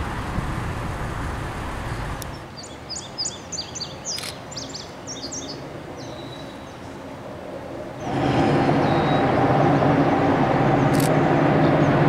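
A freight car rolling slowly past at close range, then birds chirping for a few seconds. About eight seconds in, the steady sound of an approaching freight train's diesel locomotives comes up sharply and holds.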